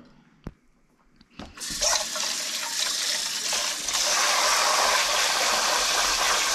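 Two small knocks, then water running steadily from a tap, starting about a second and a half in.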